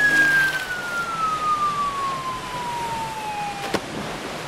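Cartoon falling-whistle sound effect: one long whistle gliding steadily down in pitch over a rushing noise, ending in a short impact as something splashes into the sea near the end.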